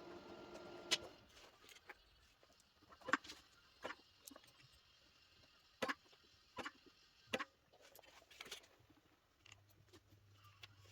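A steady hum cuts off about a second in. It is followed by a scattered series of sharp clicks and light knocks, like parts and tools being handled on a workbench, about seven in all. A faint low hum starts near the end.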